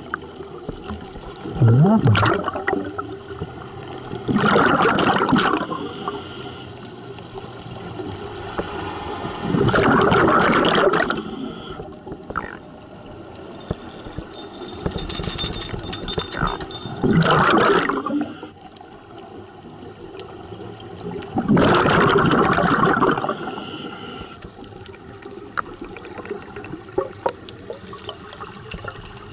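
Underwater scuba breathing through a regulator: a rush of exhaled bubbles about every four to seven seconds, five times, each lasting a second or two, with quieter water noise in between.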